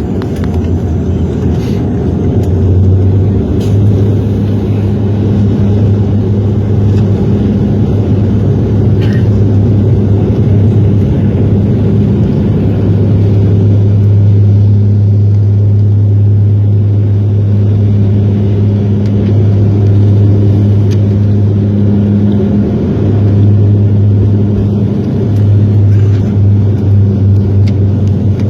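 Steady propeller drone from a Dash 8 Q400's turboprops heard inside the passenger cabin: a loud, deep hum with a fainter overtone above it over a constant rumble. The hum wavers briefly a little past three-quarters of the way through.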